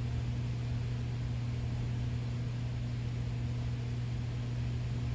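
Steady low hum with an even hiss underneath, unchanging throughout: background noise of the room.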